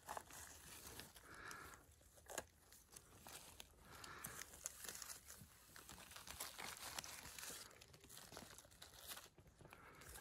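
Faint, irregular crackling and rustling of dry leaf litter and twigs on the forest floor as it is disturbed.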